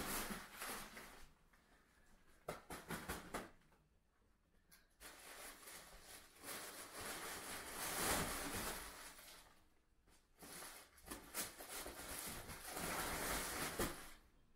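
Fabric cat tunnel rustling and crackling as a kitten scrambles through and over it, in several bouts of a second or more with short quiet gaps between.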